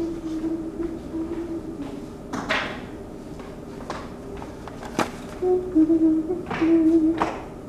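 A person humming a slow tune in held notes, with a few short clattering noises of things being handled mixed in.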